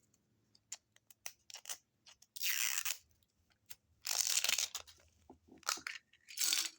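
Plastic toy packaging being torn open and crinkled by hand: a scatter of light clicks, two longer tearing rips about two and four seconds in, and shorter rustles near the end.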